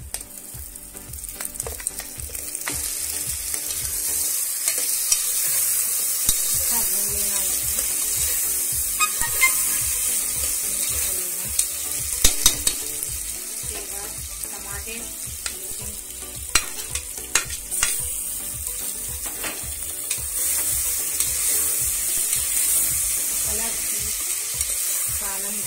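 Onions, chillies and potato cubes frying in hot oil in a pressure cooker, sizzling steadily, while a ladle stirs them and scrapes against the pot with a few sharp clinks. The sizzle grows louder over the first few seconds.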